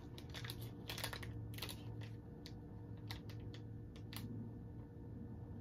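Crinkly plastic candy wrapper crackling as it is turned over in the fingers, a run of small irregular crackles that thins out after about four seconds, over a low steady hum.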